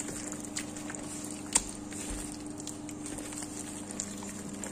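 A hand mixing raw chicken strips in a bowl with a wet coating of egg white, corn flour and soy sauce: soft squishes and scattered clicks, one sharper click about a second and a half in, over a steady low hum.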